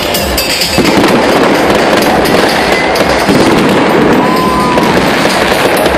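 Fireworks going off at close range in a dense barrage: continuous crackling with many overlapping bangs, getting louder about a second in.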